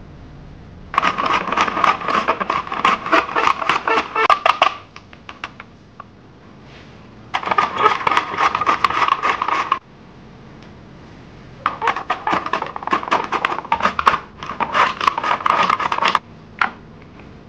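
Vegetables being shredded on a plastic mandoline slicer's julienne blade: three runs of quick repeated strokes, each a few seconds long, with short pauses between.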